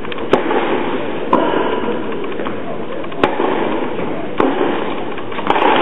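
Tennis balls struck by racquets and bouncing on a hard indoor court during a rally: a sharp pop every second or so over a steady background hiss.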